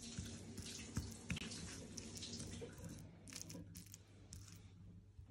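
A metal fork mashing soft roasted garlic cloves on a wooden chopping board: faint squishing, with the tines clicking and scraping against the board and a sharper tap about a second in.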